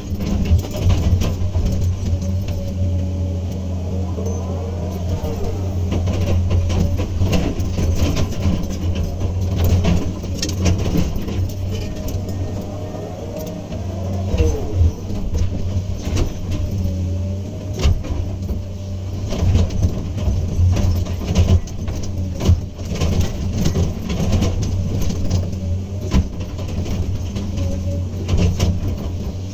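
Komatsu PC200 excavator's diesel engine running steadily under working load, with a hydraulic whine that rises and falls in pitch as the machine swings and digs, and frequent scattered knocks and clanks.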